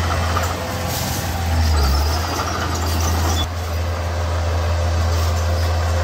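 Heavy diesel engine of earthmoving machinery running under load, a steady low drone that swells briefly about two seconds in and drops suddenly a little past halfway.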